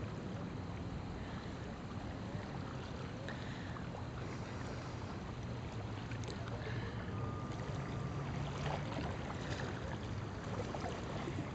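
Steady ocean surf and wind noise.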